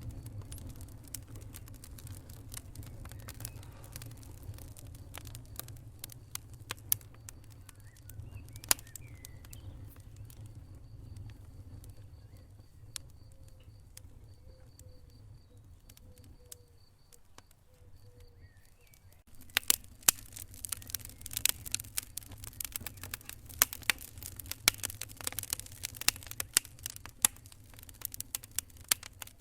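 Wood fire in a fireplace crackling and popping: sparse sharp pops over a low rumble of flames, thinning out in the middle. About two-thirds through it gives way abruptly to much denser, louder crackling.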